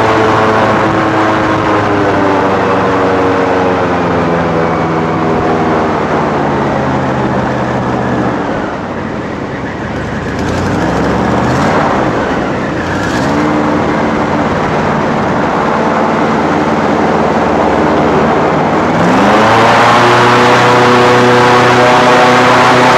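Airboat engine and propeller running loud, the pitch easing down over the first several seconds and the level dipping as the throttle is backed off, then picking back up. Near the end it revs up sharply and runs louder.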